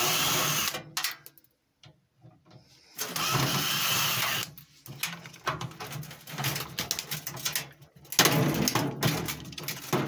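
Power drill with a Phillips bit running in three short bursts, each about a second long, backing screws out of a microwave's sheet-metal panel. Clicks and rattles of the parts being handled fall between the bursts.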